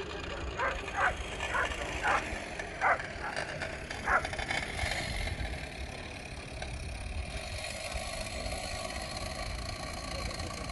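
Dogs barking at a sighthound race track: about six short barks over the first four seconds, then a steady background noise.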